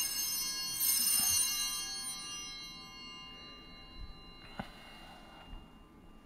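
Altar bells rung at the elevation of the chalice after the consecration: a ring at the start and another about a second in, then the high, many-toned ringing fades away over the next few seconds. A soft knock about four and a half seconds in.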